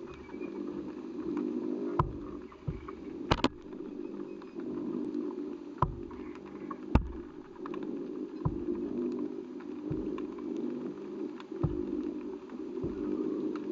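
Underwater camera recording through its housing: a steady muffled hum with sharp clicks every second or two.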